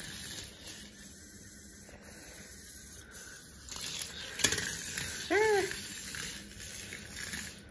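A plastic toy snake clicks sharply on tile flooring as a hand handles it, and about a second later comes a brief pitched call that rises and falls.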